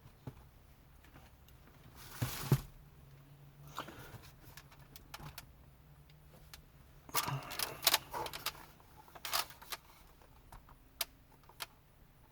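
Clicks, knocks and rattles of plastic dash trim, wiring and small hardware being handled. There is a louder rustling clatter about two seconds in and a cluster of rattles and clicks between about seven and ten seconds.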